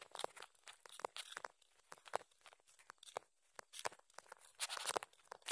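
Faint, irregular crunches and clicks of footsteps on a dirt and gravel track.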